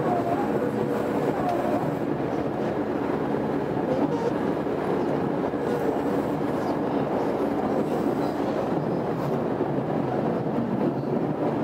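Steady running noise heard inside a Tobu 20000 series commuter train car travelling between stations through the Hibiya Line's underground tunnel, with a low rumble of wheels and motors.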